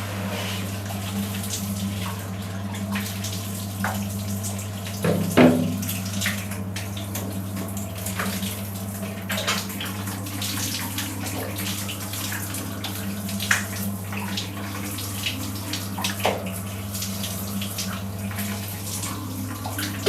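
Water running from a shower or tap in a bathroom, with irregular splashes and knocks, the loudest about five seconds in, over a steady low hum.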